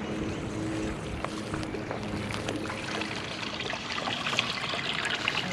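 Water trickling and splashing lightly, with many small ticks, and a faint steady hum that fades out about three seconds in.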